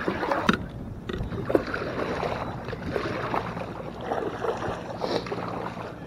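Kayak on the water: irregular splashing of water and light knocks against the hull, typical of paddling.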